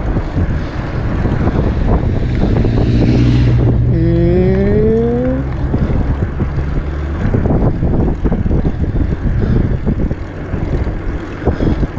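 A motor vehicle passes close by, loudest about three seconds in, its engine note climbing as it speeds up. Wind rush and tyre noise from the moving bicycle run beneath it.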